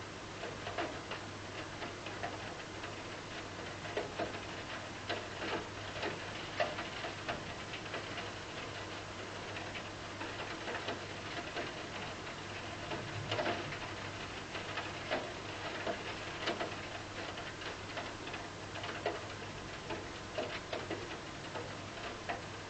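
Rain falling, an even hiss with irregular drops ticking sharply close by, over a steady low hum.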